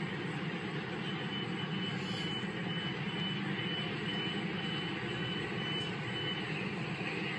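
A steady low rumble, with a high electronic beep repeating about twice a second from about a second in until near the end, like a vehicle's reversing alarm.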